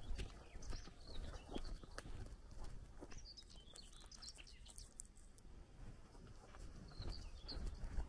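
Small songbirds chirping in short bursts, most around the middle and again near the end, over footsteps on a dirt track.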